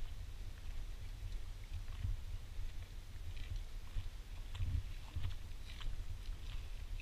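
Low, gusting rumble of wind on the camera microphone while walking, with scattered light crunches of footsteps on a debris-strewn path, a few more of them a little past the middle.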